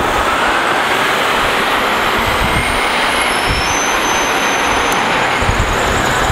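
Steady street traffic noise as an articulated diesel city bus, a New Flyer D60HF with a Detroit Diesel Series 50 engine, drives away among taxis and cars.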